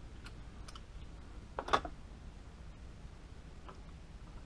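Faint clicks and one brief scraping rattle about a second and a half in: small metal parts and tools handled on a bolt-action rifle as its action is fitted back into the stock.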